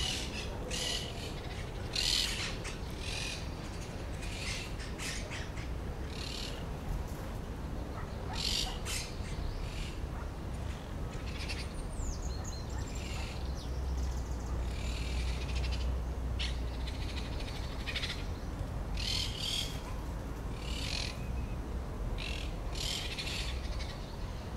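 Birds calling with short, high chirps, repeated at irregular intervals about a second or two apart, over a steady low rumble.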